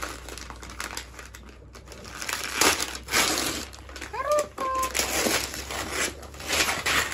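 Gift wrapping paper being torn and crumpled off a box. It starts with quieter rustling, then from about two and a half seconds in comes a run of loud ripping and crinkling.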